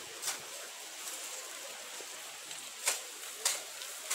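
A few short scrapes of a hand tool clearing weeds from the ground, over a steady outdoor hiss.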